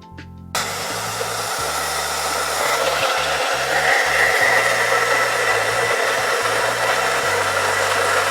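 Hand-held blow dryer switched on about half a second in, then running steadily at full blast.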